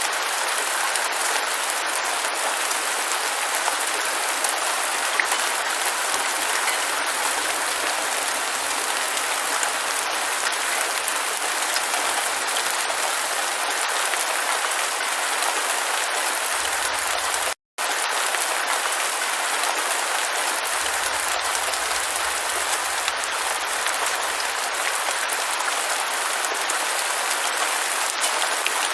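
Steady rain falling, an even hiss of countless drops with no thunder or distinct splashes. A little over halfway through the sound cuts out to silence for a split second, then carries on unchanged.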